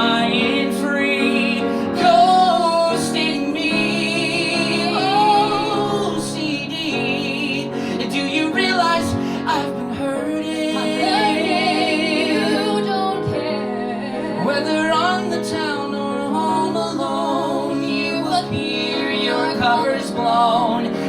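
Music: a woman singing a wavering, sustained vocal line with vibrato over steady instrumental accompaniment.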